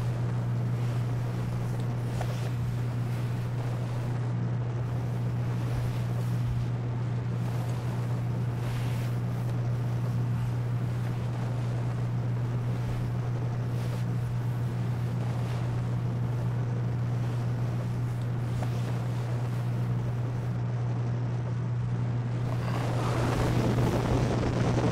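Steady low electrical hum with a hiss of noise over it. In the last two seconds a loud rising rush of noise swells up and cuts off suddenly.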